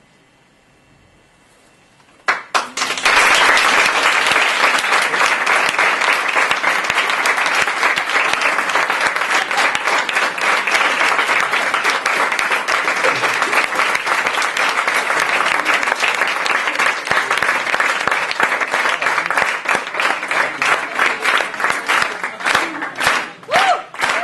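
Audience applauding: after a near-silent pause it breaks out suddenly about two seconds in, holds steady, and thins to separate claps near the end.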